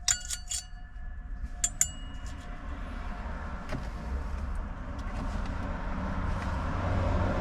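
Small metal screws clinking with short ringing tones, in two quick clusters in the first two seconds, as they are handled and set into a metal magnetic screw holder. After that a steady low rumble grows louder toward the end.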